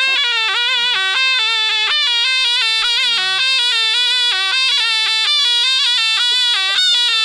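A folk melody played on a single melodic instrument, one continuous line of notes stepping up and down without breaks.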